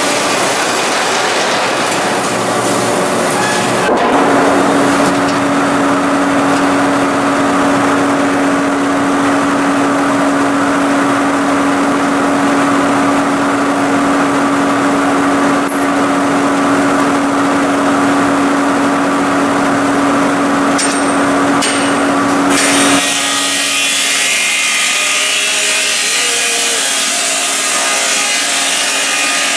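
Laimet 120 circular sawmill blade running and sawing through logs, a loud continuous rasp of the cut. From about four seconds in a steady hum runs under it, and it stops abruptly about 23 seconds in, where the sound of the cut changes.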